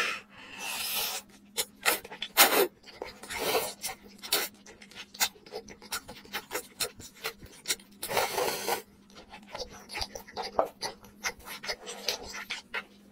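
Close-miked wet eating sounds: long, sauce-coated tteokbokki rice cakes being slurped in and chewed, with many sticky mouth clicks. Several longer slurps come in between, the longest about eight seconds in.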